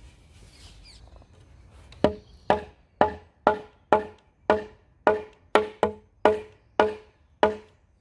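Hammer knocking on a glulam timber post to seat it onto a concealed beam hanger. About a dozen sharp wooden knocks start about two seconds in and come roughly two a second, each ringing briefly.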